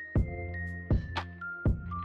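Background music with a steady beat: a sharp percussive hit about every three-quarters of a second over held chords, with a high melody stepping downward.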